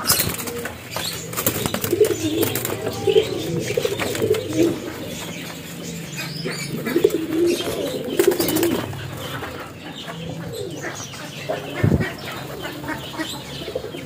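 Domestic pigeons cooing, with wings flapping now and then.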